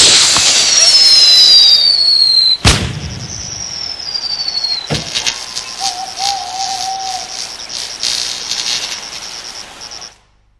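Commercial sound effects: two high falling whistles, each ending in a sharp bang, then a steady chirping of crickets with a brief wavering hoot. The sound cuts off just before the end.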